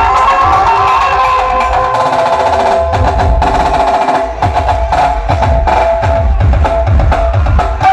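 A banjo party band playing loudly through a large sound system: a melody on the electric banjo with drums. About three seconds in, a dense run of drum strokes takes over, with deep bass thumps.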